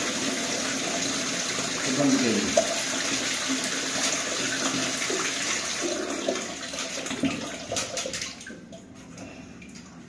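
Water gushing from an opened chilled-water pipe of an air-conditioning unit into a plastic bucket as the line is flushed: a steady splashing rush that tapers off and stops about eight seconds in, followed by a few knocks of the bucket being handled.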